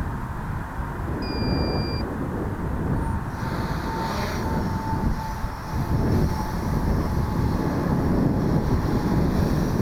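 Electric quadcopter's brushless motors and propellers buzzing in flight, with wind rumbling on the microphone. There is a brief electronic beep about a second in.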